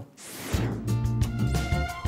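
A short whoosh, then background music starts about half a second in, with held notes over a steady bass.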